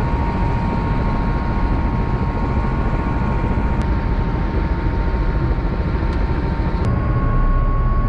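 Helicopter engine and rotor running steadily, a dense rumble with a steady whine on top; about seven seconds in the whine steps up slightly in pitch and the noise gets a little louder.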